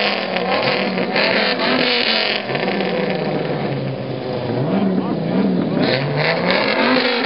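Pickup truck engine being revved hard through its exhaust, over and over, its pitch climbing and falling several times as the throttle is blipped, with voices from onlookers.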